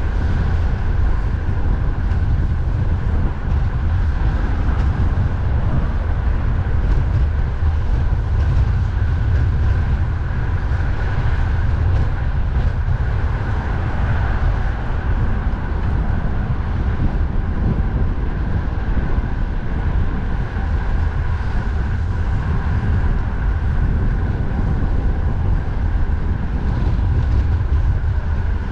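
Steady wind rumble on the microphone over the continuous noise of road traffic, with a faint whine running through it.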